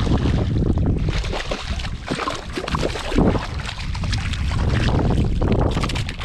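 Hooked speckled trout thrashing and splashing at the water's surface as it is reeled to the kayak and lifted out, loudest about three seconds in. Heavy wind rumbles on the microphone throughout.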